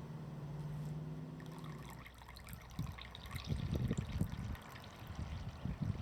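Water being poured in an uneven trickle that starts about two seconds in, after a steady low hum.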